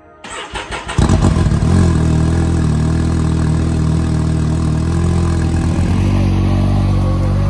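A vehicle engine cranking briefly and catching about a second in, then running steadily.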